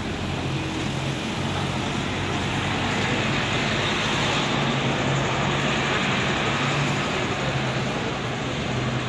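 Diesel engine of a double-decker bus running as it drives past close by, a steady engine note over street traffic noise, a little louder midway as the bus passes.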